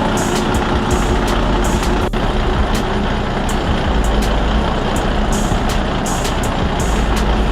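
Heavy diesel machinery running steadily while a log loader loads logs onto a truck, with sharp high clicks about twice a second over the engine.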